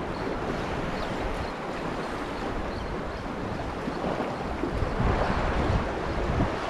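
Sea water washing against a rocky shore, a steady noisy wash, with wind buffeting the microphone that grows stronger in the last couple of seconds.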